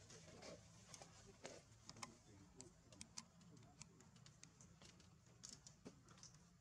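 Near silence with faint, irregularly spaced small clicks and ticks.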